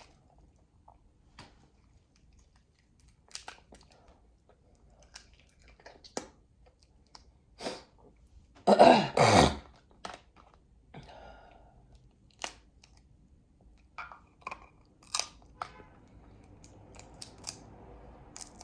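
Dungeness crab being eaten: the shell cracking and snapping in a string of sharp clicks, with chewing. Two louder short bursts come about nine seconds in.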